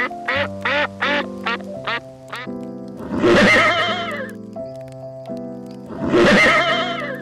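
Animal calls over background music with a steady melody: a quick run of short, repeated calls about three a second, then two longer, louder calls, one about three seconds in and one near the end.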